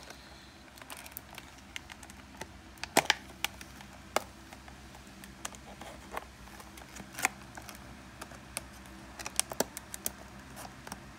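Clear plastic packaging of a new light dimmer being handled and pried open: irregular sharp clicks and crackles.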